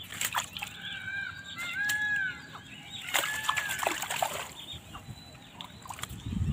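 Birds calling, many short rising-and-falling calls over the first four seconds or so, with water sloshing and splashing around a man wading in shallow water.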